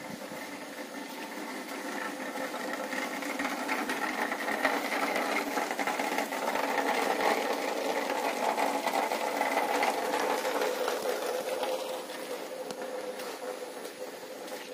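A steady mechanical droning buzz, like a small engine running at a constant speed. It swells to its loudest about seven to ten seconds in and eases off near the end.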